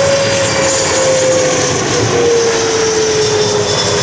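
Bombardier CC-144C Challenger jet on final approach, landing gear down, passing close by. Its two rear-mounted turbofans make a loud, steady jet noise with a whine that slowly falls in pitch as it goes past.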